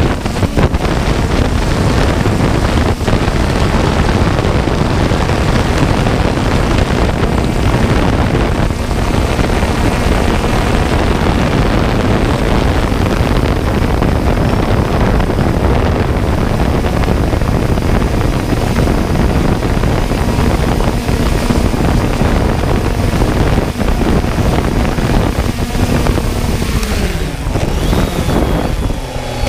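Loud wind buffeting and propeller noise of a 3DR Solo quadcopter in flight, heard from its own mounted GoPro. Near the end the motor tones glide downward as the drone sets down in the grass.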